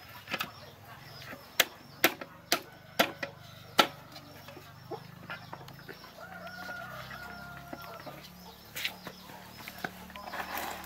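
Chickens clucking, with repeated short high calls. About five sharp clicks in the first four seconds, the loudest sounds, as the small petrol engine of a water pump is handled.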